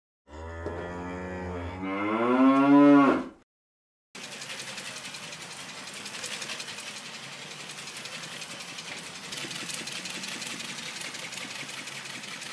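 A long cow moo that rises in pitch and is loudest just before it stops, then, after a second of silence, the steady whirring buzz of a battery-powered toy cow's motor flapping its wings.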